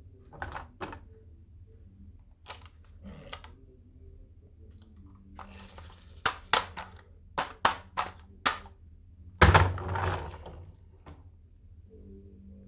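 Marbles and wooden HABA marble-run pieces clicking and knocking. There is a quick run of sharp clicks about six to eight and a half seconds in, then the loudest knock about nine and a half seconds in, followed by about a second of rattling.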